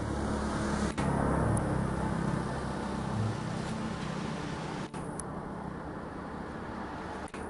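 Steady low rumble of distant road traffic, with brief sharp dropouts about a second in, near five seconds and near the end.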